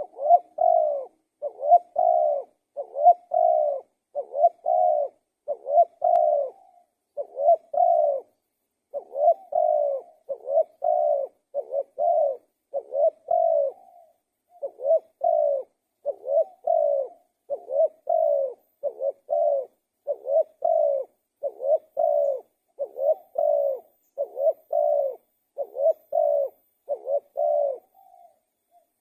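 Spotted dove (tekukur) cooing steadily: a long run of short, low coo notes, about one a second, with brief pauses.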